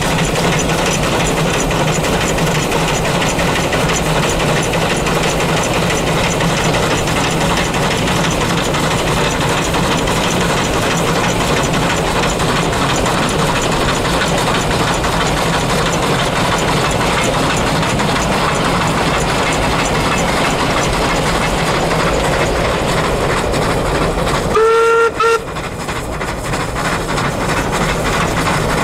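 Steady loud road and wind noise, heard from a car driving alongside the steam locomotive NM25. Near the end, the locomotive's whistle sounds one short blast, a single clear note with overtones.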